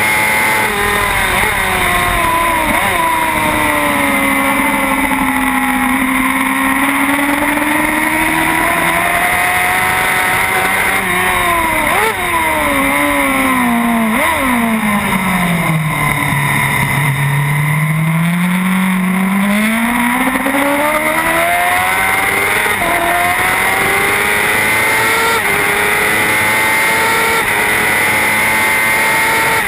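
Racing motorcycle engine heard onboard at speed, with heavy wind rush. The engine note sinks, drops in a few jagged steps as the bike shifts down for a bend about halfway through, bottoms out, then climbs steadily again under acceleration, with gear-change steps near the end.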